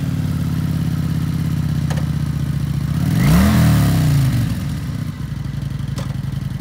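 Kawasaki Vulcan 900 Custom's fuel-injected, liquid-cooled V-twin idling just after a start. It is revved once about three seconds in, rising and falling back to idle, with a light click about two seconds in and another near the end.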